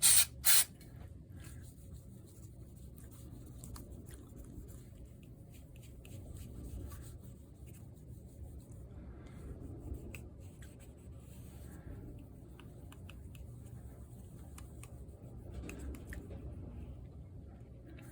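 Two short bursts of hiss near the start, then quiet rubbing and scattered small clicks as the bare iPhone OLED panel is wiped clean of leftover OCA glue and dust.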